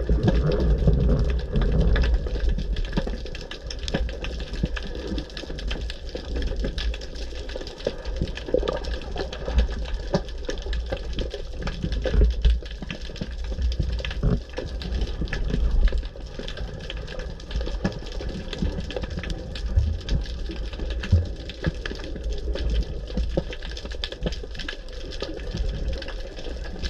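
Underwater sound picked up by a diver's camera: scuba regulator breathing, with bursts of exhaled bubbles every few seconds over a steady low rumble.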